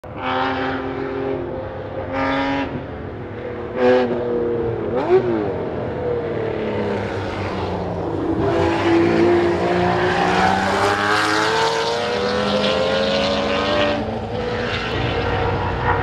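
Jaguar XJS Group A touring car's V12 engine at race pace: several short throttle blips on the downshifts in the first few seconds, then one long rising pull under acceleration that drops off about two seconds before the end.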